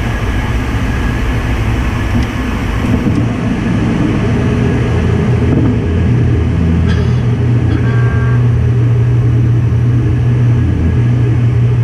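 Steady in-flight cockpit noise of a light aircraft: engine and airflow drone with a strong low hum that grows stronger partway through. A brief electronic tone sounds once, about eight seconds in.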